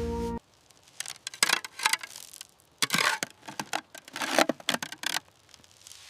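Three clusters of short scraping and rustling handling noises from building restoration work, with quiet gaps between them.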